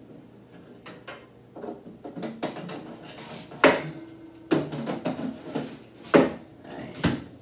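Off-camera kitchen handling noise as an air fryer is loaded: scattered knocks and clatter, with several sharp, loud clunks in the second half.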